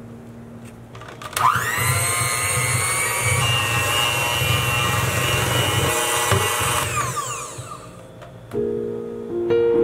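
Electric hand mixer starting up about a second in, its motor whining up to speed, running steadily as its beaters whisk a thick cream cheese frosting, then winding down and stopping about seven seconds in.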